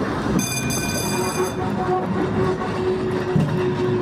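Volk's Electric Railway car running along the track: a steady electric hum over the rumble of wheels on rail, with a brief high-pitched tone lasting about a second, starting about half a second in.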